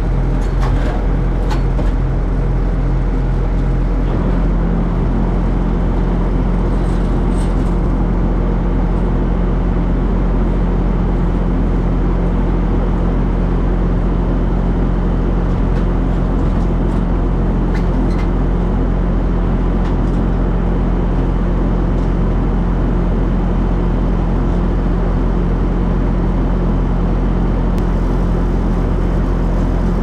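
Engine of a piece of farm machinery running steadily at constant speed, its note shifting slightly about four to five seconds in, with a few faint clanks over it.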